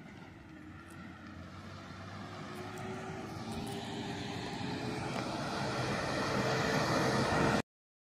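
A motor vehicle's engine and tyres drawing nearer, growing steadily louder, then cut off abruptly near the end.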